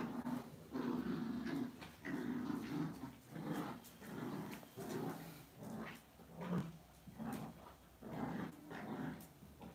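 Lhasa Apso dogs growling in play during a tug-of-war over a cloth, a run of short rough growls that grows fainter toward the end.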